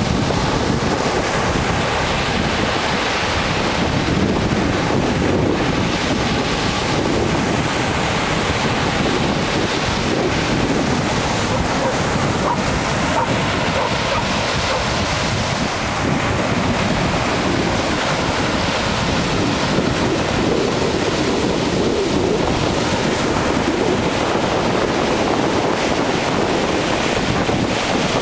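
Sea surf breaking and washing up a sandy beach in a steady, even rush, with wind buffeting the microphone.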